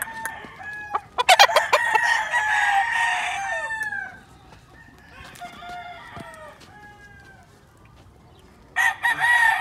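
Sweater-line gamecocks crowing. One loud, long crow starts about a second in, just after a quick rattle of sharp claps. Fainter crows from other roosters come in the middle, and another loud crow begins near the end.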